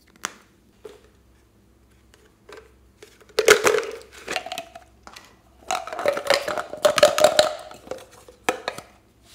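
Hard plastic owl-shaped toy container being handled and twisted open: rough crackling and rubbing of plastic in two long stretches, with a squeaky creak, and a couple of sharp clicks near the end.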